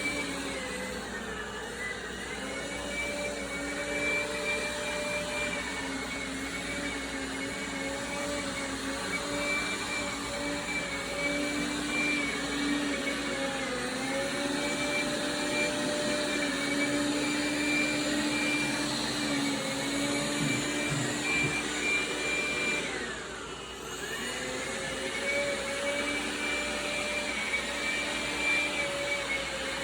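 Dreame Bot L10 Pro robot vacuum running with a steady whine from its suction fan. The pitch sags and recovers a few times, with one deep dip and drop in loudness about 23 seconds in. The suction is shifting speed as the robot keeps switching to its carpet boost on a hard floor.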